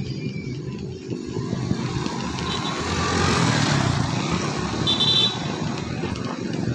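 Motorcycle engine running steadily while riding, with road and wind noise that grows louder around the middle. A short, high beep comes about five seconds in.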